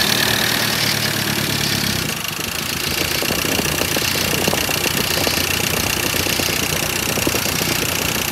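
Freshly fitted reconditioned Ford Ranger 2.2 TDCi four-cylinder diesel engine idling steadily, sounding smooth and healthy. From about two seconds in its fast diesel clatter comes through more plainly.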